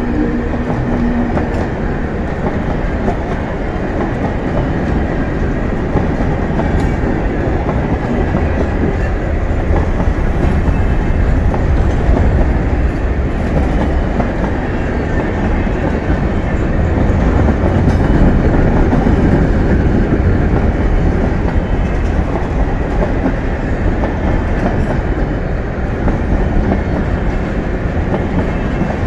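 Freight wagons of a long freight train rolling past close by: a steady, loud rumble of wheels on the rails, swelling a little past the middle.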